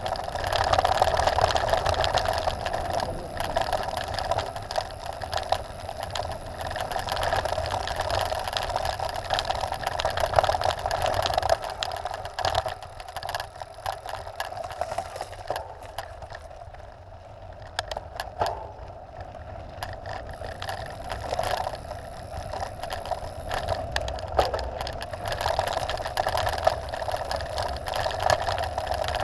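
Trek Top Fuel 9.8 full-suspension mountain bike riding downhill on a loose gravel road: steady tyre noise and rattling, with wind on the microphone. It drops quieter for a stretch around the middle, with a few sharp clicks, then picks up again.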